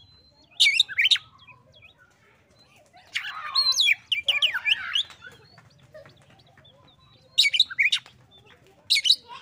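Oriental magpie-robin singing in short bursts of quick, sweeping whistled notes: a brief phrase about half a second in, a longer and denser bout from about three to five seconds, and two more short bursts near the end.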